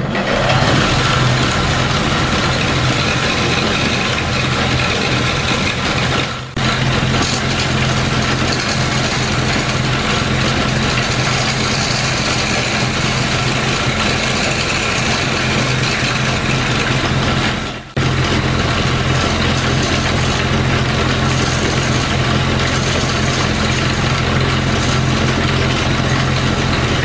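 Homemade wood lathe running steadily: the electric motor and drive give a constant hum, with a dense scraping hiss as a small chisel cuts the spinning bowl blank. The sound drops out sharply and briefly twice, once about a third of the way in and again about two-thirds in.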